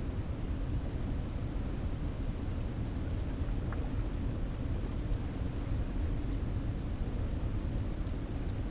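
Steady low rush of water churning below a dam spillway, with a thin, steady high insect buzz above it.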